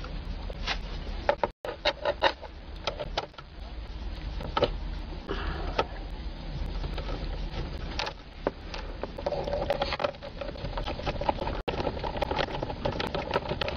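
Tool work on the steering column's plastic trim covers: a socket backing out the small 5.5 mm screws, with scattered clicks and knocks of tool and plastic. A steady whir runs from about nine seconds in for a few seconds.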